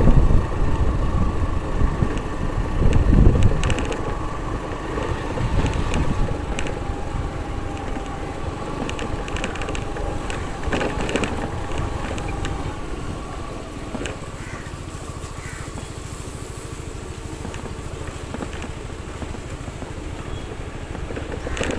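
Motorcycle riding over a rough gravel road: engine running with the rumble of tyres on loose stones, heaviest in the first few seconds and then steadier and quieter.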